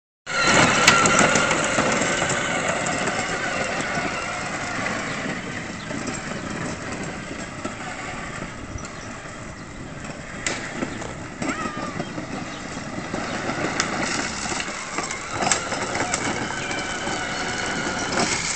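Battery-powered ride-on toy quad bike running, a steady electric motor and gearbox whine that is loudest at the start.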